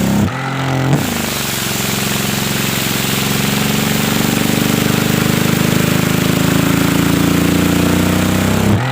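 Vacuum cleaner motor running with a steady, engine-like hum. It cuts out briefly just after the start and spins back up, then dips again near the end.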